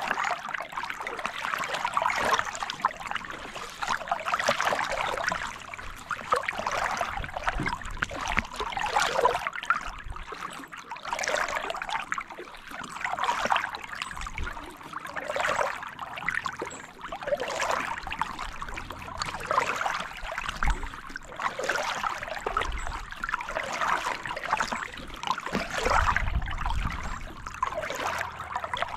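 Kayak paddle strokes: a double-bladed paddle dipping and splashing into calm river water with dripping in between, one swell of splashing about every two seconds.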